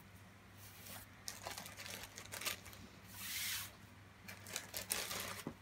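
Plastic packaging crinkling and rustling as it is handled, in short scattered crackles with one longer rustle a little past the middle.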